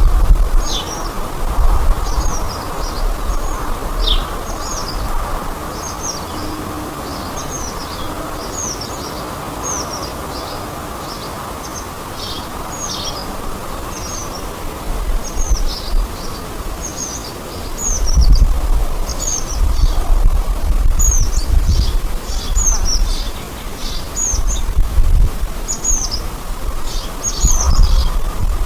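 A songbird calling repeatedly, short high notes sweeping downward about once a second, over a steady hiss. Bursts of low rumble come and go, strongest partway through and near the end.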